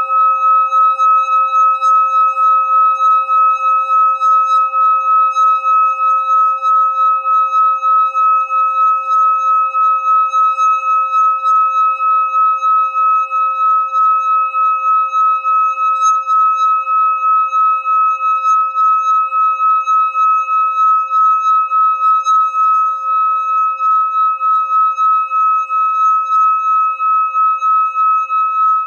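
Hand-held metal singing bowl being sung by rubbing a wooden mallet around its rim: one steady ringing tone with higher overtones, swelling and fading about three times a second.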